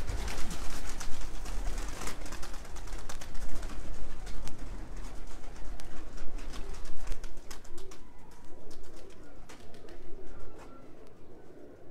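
Domestic pigeons cooing in the loft, with many sharp clicks and scuffling that thin out near the end, over a low rumble.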